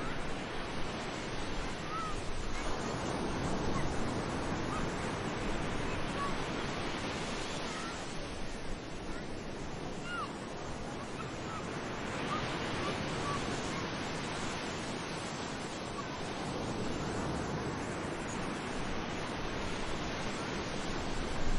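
Sea surf washing onto a beach, the wave noise swelling and easing every few seconds. A few faint short calls sound over it.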